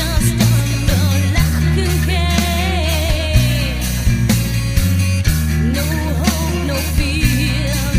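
Rock music with a male singing voice, electric guitar, bass and a steady drum beat.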